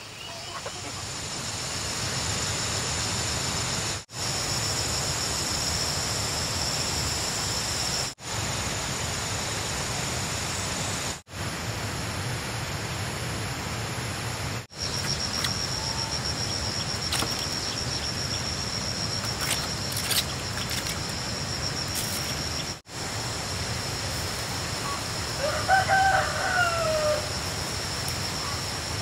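Steady outdoor background hiss with a high, even whine above it, dropping out briefly several times at edit cuts; a rooster crows once near the end.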